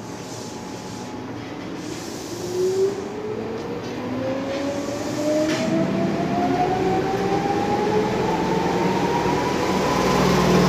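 Tokyu 8000 series electric commuter train pulling out of the station, its traction motor whine rising steadily in pitch as it accelerates, over the rumble of the moving cars. It grows louder as the train gathers speed.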